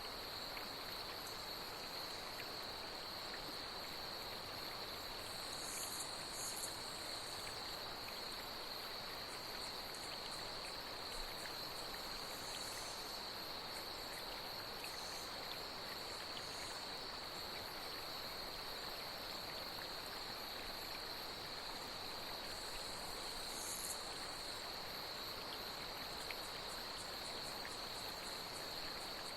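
Night insects trilling steadily at one high pitch over the even hiss of flowing water, with a few short, higher chirps about six seconds in and again near the end.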